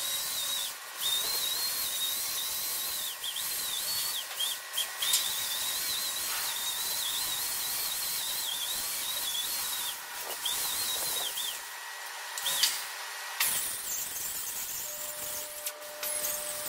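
Pneumatic grinder running against the steel of a worn hitch bore, cleaning it up: a high whine that wavers in pitch as it is pressed in and eased off, over a steady air hiss. It stops briefly a few times in the second half.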